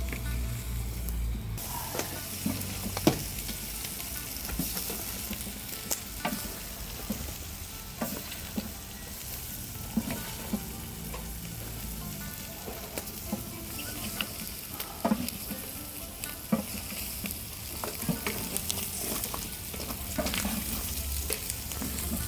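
Offal sizzling and frying in a sac pan. A utensil stirring it knocks and scrapes against the metal in frequent sharp clicks over the steady sizzle.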